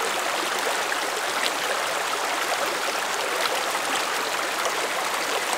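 Small rocky mountain stream running steadily over a riffle between boulders into a clear pool: an even, constant wash of flowing water.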